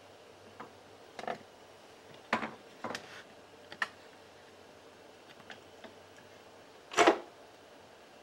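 Handling noise from a hand-held camera being moved at a window: a few scattered sharp clicks and knocks, with the loudest knock about seven seconds in.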